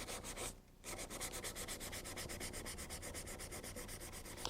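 400-grit sandpaper rubbed in quick, even back-and-forth strokes over a plastic tail light lens, sanding out a scratch, with a brief pause about half a second in.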